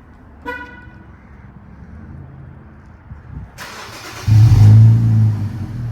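A short beep about half a second in. Then, near the end, the Infiniti Q50 3.0t's twin-turbo V6 cranks, fires and flares loudly before settling into a lower, steady idle. This is the first start through its newly fitted axle-back exhaust and lower downpipes.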